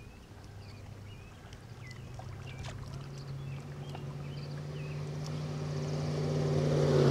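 An engine hum of steady pitch growing louder as a vehicle approaches, passing closest right at the end with a rush of noise.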